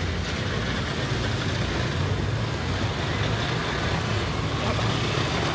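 Demolition derby cars' engines running, a steady low rumble with no distinct crash heard.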